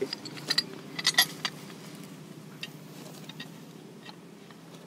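Metal hand-pump parts and tools clinking as the plunger assembly is fitted together and tightened. There is a cluster of sharp clinks in the first second and a half, then a few faint taps.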